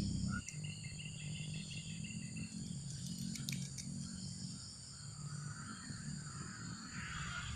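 Steady chorus of crickets and other insects, several high-pitched continuous tones at once, over a low steady hum. A few brief sharp clicks come about three seconds in.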